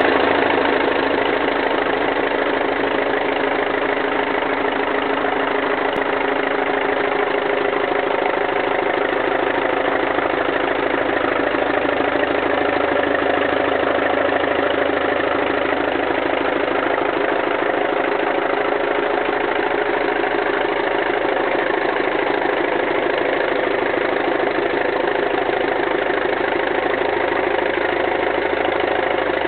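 Allis-Chalmers 20-35 tractor's four-cylinder engine idling steadily.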